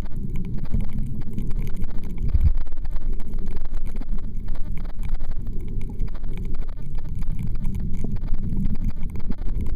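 Muffled underwater rumble of water moving around a submerged camera, swelling and easing, with faint crackling clicks throughout.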